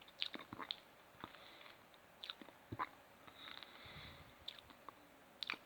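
Faint, scattered mouth clicks and gulping sounds from a person swallowing air to work up a burp, with no burp coming out.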